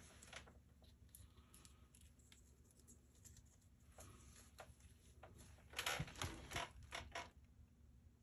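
Quiet handling of a wristwatch being put on: faint clicks and rustling as the leather strap is fastened, with a louder cluster of quick clicks and rustles about six seconds in.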